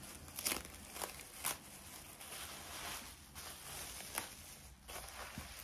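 Rustling and a few sharp clicks from hands handling cosmetic products and their packaging.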